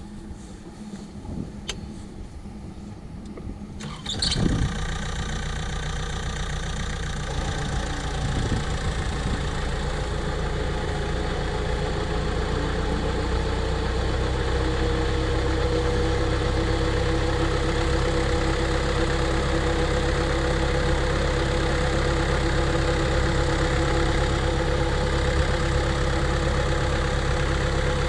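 Tractor engine starting about four seconds in, then running steadily while it drives a tractor-mounted irrigation pump. Its pitch rises a little a few seconds later and then holds.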